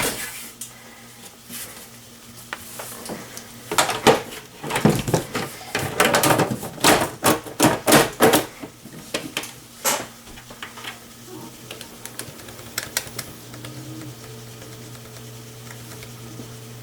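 Sheet-metal side panel of a desktop PC case being slid back on and secured, a run of metallic clicks, clatters and knocks. A steady hum starts near the end.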